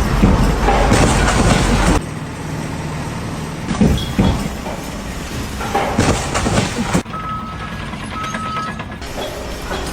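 Construction-site machinery and vehicle noise with scattered knocks, changing abruptly a few times.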